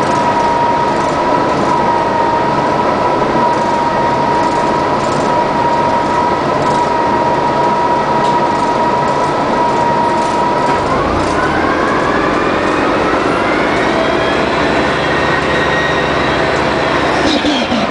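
1999 Orion V CNG transit bus, with a Detroit Diesel Series 50G four-cylinder natural-gas engine and an Allison B400R automatic transmission, running with a steady whine for about ten seconds. Then the whine rises in pitch as the bus accelerates, drops sharply near the end at an upshift, and starts to climb again.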